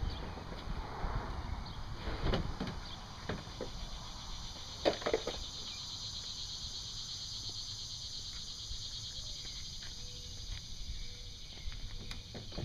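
A few scattered knocks and clunks in the first half, then a steady high-pitched buzz over a low background rumble.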